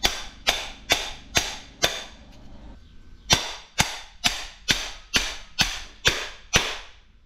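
Hammer striking a ceiling fan motor, about two sharp metallic blows a second: five, a short pause, then about eight more. The hammering is trying to drive out a stuck part that won't come out.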